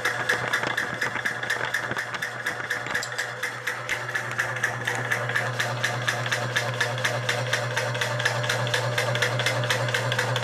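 Homemade high-pressure air compressor running and building pressure: its piston mechanism clatters in a fast, even rhythm over a steady hum.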